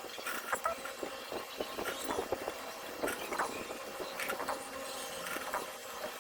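Magnet wire being wound by hand through the slots of a Makita 4323 jigsaw armature: irregular light clicks and scratchy rubbing, over a faint steady hum.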